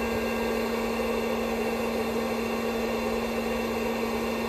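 A heat gun and a 1000 W inverter running steadily under heavy load, drawing about 111 amps from a 12 V lithium battery: an even whirring hum with one constant tone and no change.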